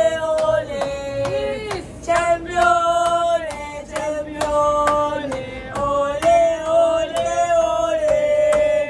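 A group of women singing a song together in a chant, with a steady sharp beat under the voices about two to three times a second.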